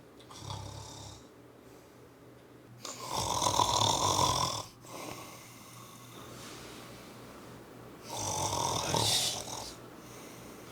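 A person snoring: a fainter short snore at the start, then two loud, fluttering snores of about one and a half to two seconds each, about five seconds apart.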